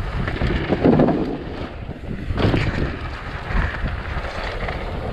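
Wind buffeting the microphone of a mountain bike descending a dirt downhill trail at speed. It is mixed with the rumble of the tyres and short knocks of the bike over rough ground, with a couple of louder gusts.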